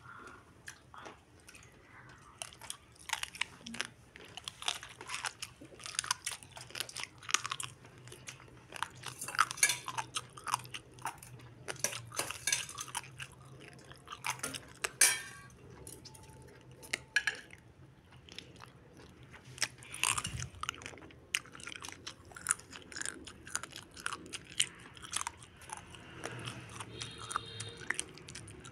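Close-up crunchy chewing and biting of pig throat cartilage, many irregular crunches throughout.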